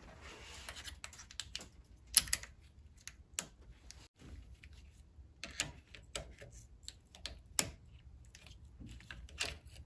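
Irregular sharp clicks and small taps of plastic and metal as the safety clip and quick-connect fitting on a car's fuel line are worked loose by hand and tool, with about five louder clicks among the softer ones.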